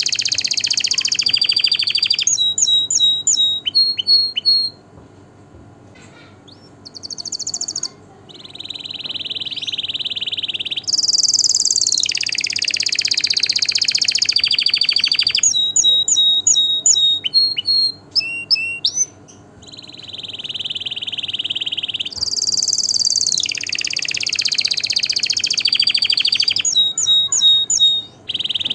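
Domestic canary singing: long, fast rolling trills and runs of rapidly repeated high notes, broken by a few short pauses.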